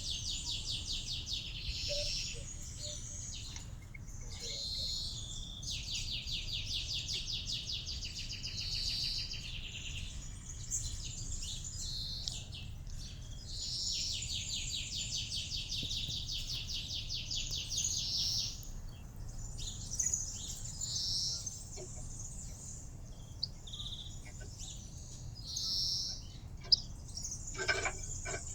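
Small songbirds singing in long, fast, high-pitched trills a few seconds each, repeated several times, with short chirps between. A steady low hum runs underneath, and a few sharp clicks come near the end.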